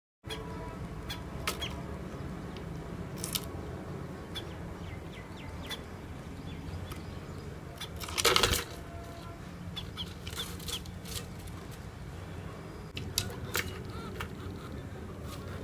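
Small birds, sparrows, chirping in short scattered calls over a steady low hum, with one louder burst about eight seconds in.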